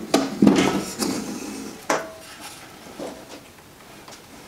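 Spool of aluminum MIG wire being pushed onto the wire spindle of an HTP Pro Pulse 200 welder and fastened: a few sharp clacks and knocks in the first two seconds, the last one ringing briefly, then faint handling.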